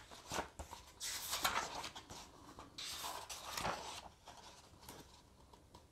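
Pages of a hardback book turned by hand: a few soft paper rustles in the first four seconds, then almost nothing.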